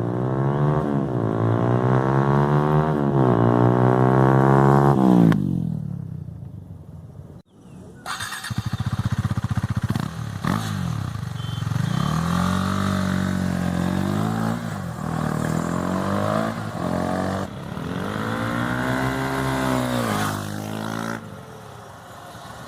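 TVS Apache RTR 160 motorcycle with an unbranded aftermarket exhaust riding past. For about five seconds the engine pulls up through the revs, with the pitch dropping and climbing again at gear changes, then fades. After a short break, the revs rise and fall several times.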